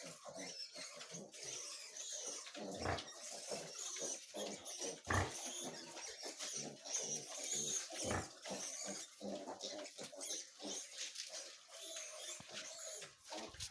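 Pigs, a sow and her piglets, grunting and rooting about in a pen in short, irregular sounds, with a few louder knocks about 3, 5 and 8 seconds in.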